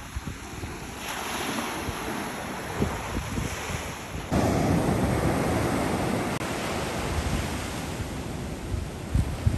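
Sea waves washing in with a steady rushing noise, and wind buffeting the microphone. It grows suddenly louder a little over four seconds in.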